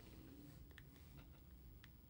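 Near silence: room tone, with a few faint, short clicks.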